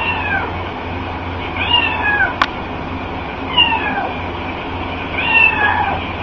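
A cat meowing four times, roughly every two seconds, each meow falling in pitch, over a steady low hum. A single sharp click comes about two and a half seconds in.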